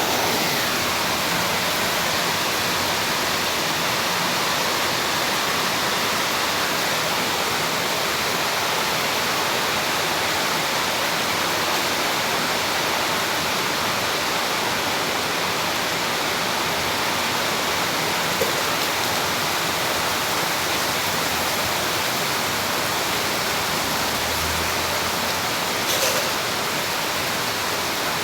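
Heavy tropical downpour, a dense steady hiss of rain that does not let up, with one short knock near the end.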